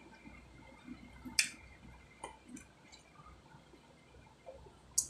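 Chewing raw cucumber: soft wet mouth sounds, with two sharp clicks, one about a second and a half in and one near the end.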